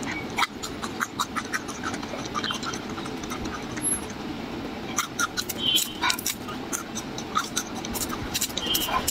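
Raw garlic cloves being chewed and papery garlic skins being peeled, a busy run of sharp crisp crackles and clicks, thickest a little past halfway.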